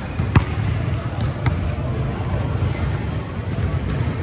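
A basketball bouncing on a gym court, with one sharp bang about half a second in and a few lighter bounces soon after. Short high squeaks, typical of sneakers on the court, come and go over a steady low rumble from the hall.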